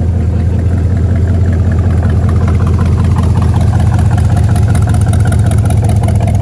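A car engine idling steadily with a low, even hum.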